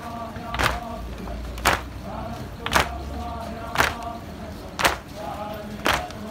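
Mourners striking their chests in unison (latm), six sharp slaps about a second apart, keeping time for the lament. Faint chanting voices carry on between the slaps.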